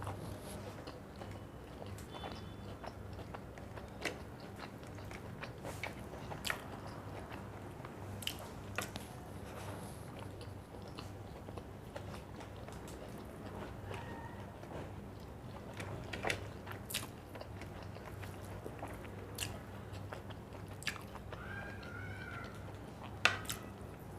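A person eating a rice and fish curry meal by hand: chewing and mouth sounds with scattered sharp clicks and small crunches, over a steady low hum.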